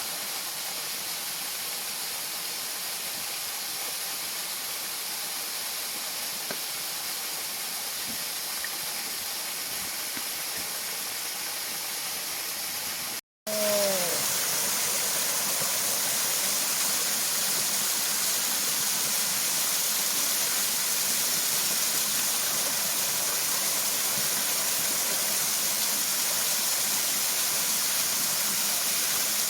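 Waterfall rushing in a steady, even hiss. It drops out briefly about 13 seconds in and comes back a little louder.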